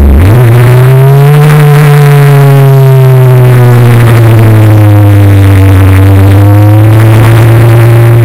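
Formula Renault single-seater's four-cylinder racing engine heard loud from onboard. Just after the start it picks up again from a sharp drop in revs, then holds fairly steady revs with a slow, slight sag and recovery, as through a long corner.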